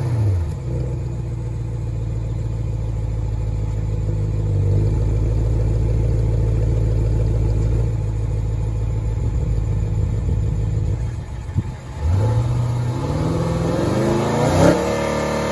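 2019 BMW M550i's 4.4-litre twin-turbo V8 heard at the tailpipes, with one of its two exhaust resonators deleted. It drops back from a rev to a steady idle, then is revved again near the end, the pitch rising and falling.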